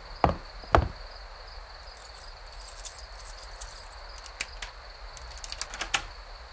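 Two last footsteps in the first second. Then a steady high insect trill, like crickets at night, with a few faint clicks.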